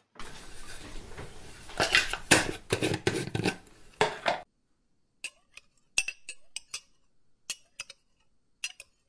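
A utensil stirring a thick chopped-vegetable batter in a stainless steel bowl: continuous wet scraping and clinking for about four seconds, which stops abruptly. Then come scattered sharp clicks of the spoon against the bowl as the mixture is scooped.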